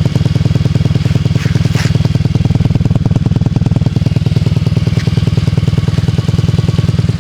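Yiying moped scooter engine running steadily at a fixed speed, a loud, even stream of rapid exhaust pulses with no revving.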